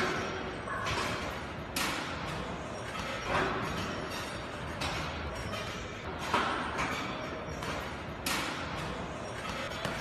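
A fighter's strikes landing one after another, about six sharp thuds spaced roughly a second and a half apart.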